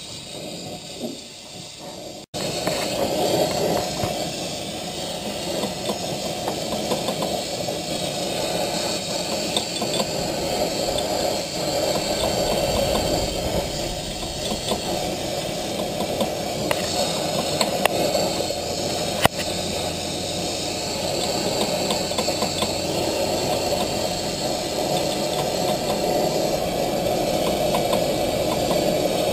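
Gas torch flame burning steadily, heating a new oil-pump drive sprocket on the crankshaft so it expands and shrink-fits into place. The sound comes in abruptly about two seconds in, with a single click near the middle.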